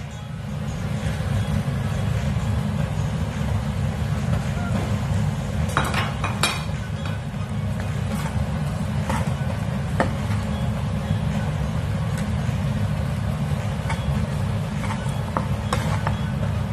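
Fried rice being stir-fried in a pan: a metal spatula clinks and scrapes against the pan now and then, with a few sharp clinks about six seconds in and single ones later. A steady low rumble runs underneath.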